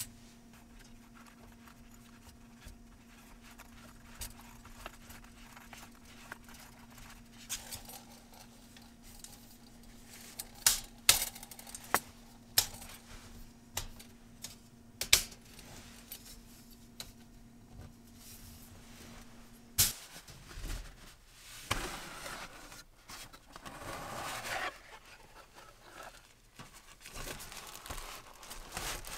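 Things being handled on a metal mesh table: a few sharp clicks and taps. A faint steady hum stops with a click about two-thirds of the way through. Near the end a cardboard box is opened and its contents rustle.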